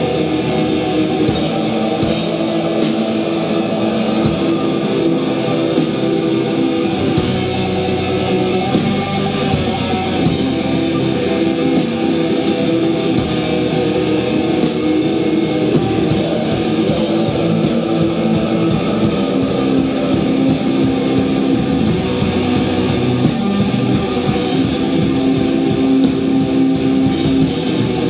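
Metal band playing live: loud distorted electric guitars over a drum kit, a dense and unbroken wall of sound.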